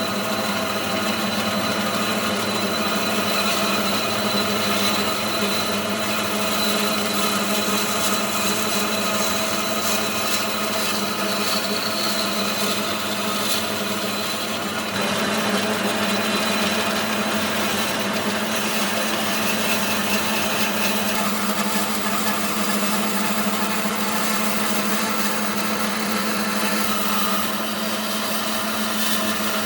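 An electric woodworking power tool running steadily with a constant motor hum; its higher-pitched noise changes about halfway through.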